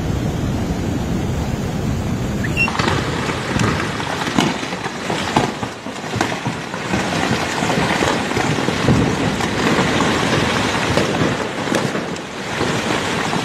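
Floodwater rushing with low noise, then about three seconds in an abrupt change to a rockfall: rocks and boulders crashing down a rock face, a dense rumble with many sharp cracks and clatters.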